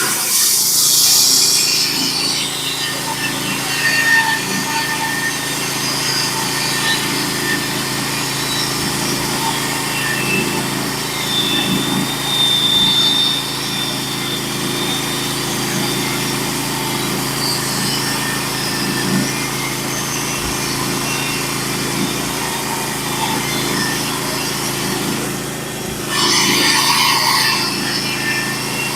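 Engine of a Norwood HD36 portable bandsaw mill running steadily under load while the band blade cuts the first slab along a large pitch pine log. There is a short burst of hissier noise about a second in and again near the end.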